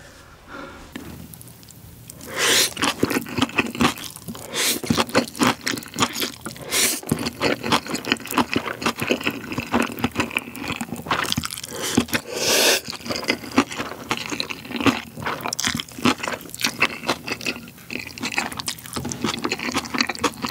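Close-miked eating sounds of Jjapaghetti black-bean noodles and kimchi: slurping noodles and wet chewing, a dense run of small smacks and clicks that starts about two seconds in, with a few louder drawn-out slurps.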